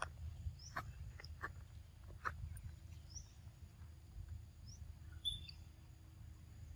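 Faint outdoor ambience: a few short, high bird chirps over a steady low rumble, with four or five sharp clicks in the first couple of seconds.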